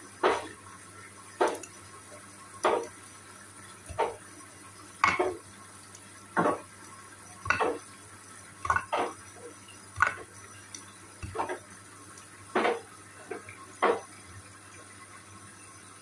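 Hoover front-loading washing machine tumbling a wash load. The laundry, in mesh wash bags, is lifted and dropped into the water of the drum with a splash and clatter about once every second, over a steady low motor hum.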